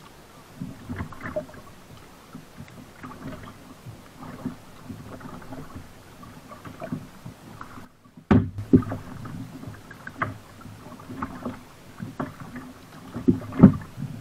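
Double-bladed paddle strokes from a sit-on-top fishing kayak: the blades dipping and splashing in calm water at an uneven pace, with a few louder low thumps against the hull, the loudest near the end.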